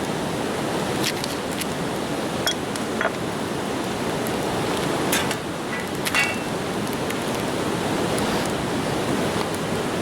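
Wood campfire crackling, with sharp pops about a second apart in places, over a steady rushing hiss.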